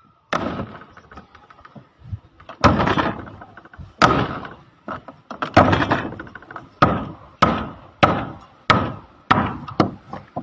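Hammer blows on wooden shuttering planks: about a dozen sharp wooden knocks, irregular at first and then coming steadily about twice a second near the end.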